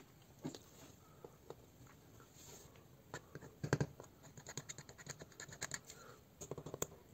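Faint scratching and tapping of a thin wooden stick against the small plastic housing of a microphone made from old earphones. A few soft ticks at first, a louder cluster of scratches about three and a half seconds in, and quicker ticking near the end.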